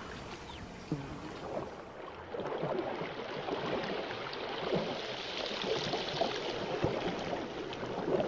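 Water sloshing and gurgling as an anaconda swims through shallow swamp water. From about two seconds in, the sound turns duller and muffled, as if heard underwater, and grows louder.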